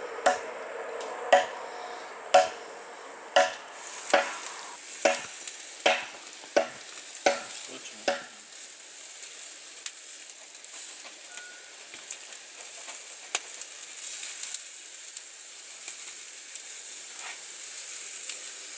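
An axe chopping firewood, about ten sharp strokes a little under a second apart that stop about eight seconds in. Under and after them, a steady sizzling hiss with scattered crackles.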